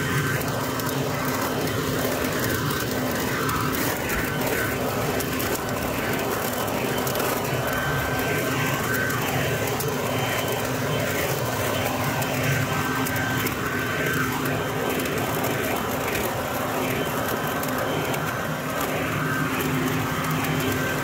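Harbor Freight Portland 12-amp 3-in-1 electric blower vacuum mulcher running steadily in vacuum mode, its motor and impeller giving a steady hum and whine. Dry leaves rattle in through the tube as it sucks them up.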